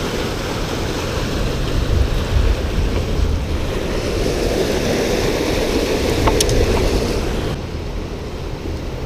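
Fast river water rushing over and beside a low concrete weir, a steady noise, with one sharp click about six seconds in.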